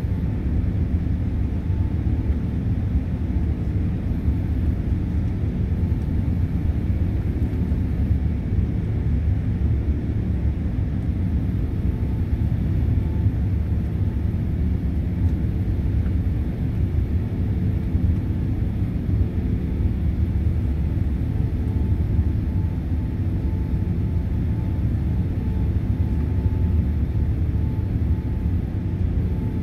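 Airbus A380 cabin noise in the climb after takeoff: a steady low rumble of the turbofan engines and airflow, heard inside the cabin beside the wing, with a faint steady whine above it.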